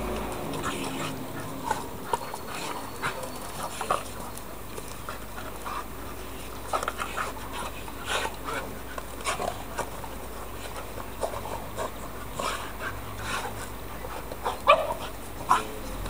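Two dogs play-fighting, making short, scattered vocal noises and mouthing sounds, with a few louder ones near the end.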